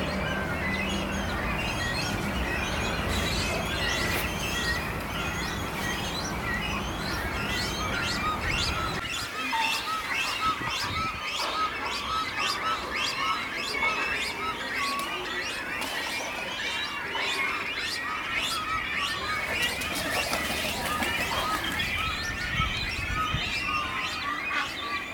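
A flock of small birds chirping and twittering together, with dense overlapping short calls. A low steady hum underneath stops about nine seconds in.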